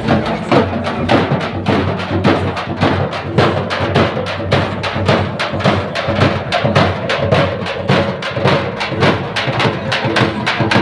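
A group of dappu frame drums beaten together in a fast, steady rhythm of dense, sharp strokes.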